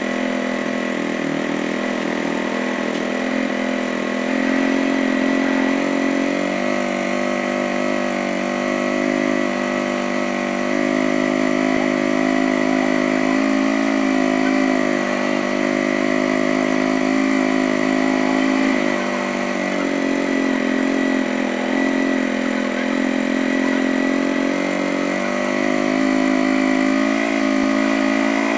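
Air-cooled motorcycle engine running steadily at a raised speed of about 3000 rpm, with its tappets set too tight so that it heats up fast; the footage is sped up to double speed. A thin steady whine sits above the engine note.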